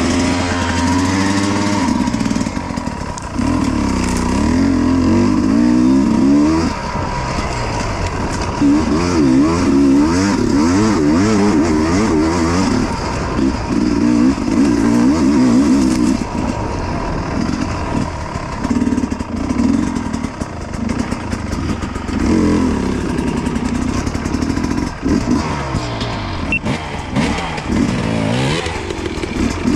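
Dirt bike engine revving up and down in repeated bursts of a few seconds as the bike is ridden over rough off-road ground.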